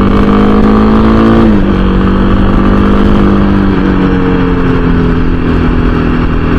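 Motorcycle engine running on the road: its note rises slightly, drops sharply about a second and a half in, then slowly sags. Wind rumble on the helmet-mounted microphone sits under it.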